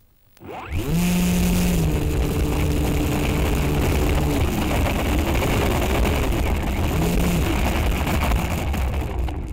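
FPV drone's electric motors and propellers spinning up with a rising whine about half a second in, then running with steady tones that waver up and down as the throttle changes, over a loud rushing hiss. The sound falls away near the end.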